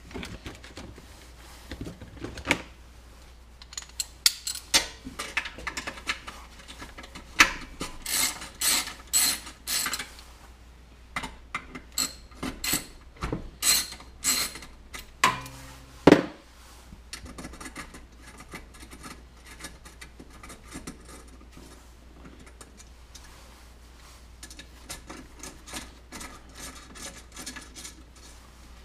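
Hand tools clicking and clinking on a Briggs & Stratton small engine as the two screws holding its throttle lever are backed out: runs of quick metallic clicks, a sharp clack about sixteen seconds in, then fainter clicks near the end.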